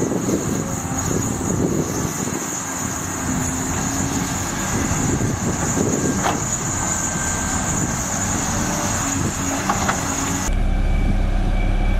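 Heavy construction machine engine running with a rough, noisy rumble and a thin steady high whine. About ten and a half seconds in, the sound cuts abruptly to a steadier, even low engine hum.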